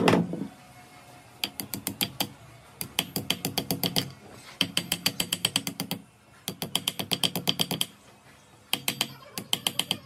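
Small hammer tapping a new seal ring into the bore of a bulldozer hydraulic jack's cast cylinder head: runs of quick light metal taps, about ten a second, each lasting about a second with short pauses between. A heavier thump right at the start.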